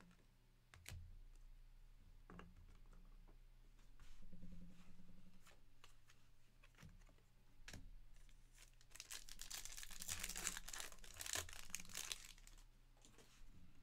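A trading-card pack's foil wrapper being torn open and crinkled: several seconds of dense crackling that starts about two-thirds of the way in. Before it, a few light clicks and taps of cards being handled.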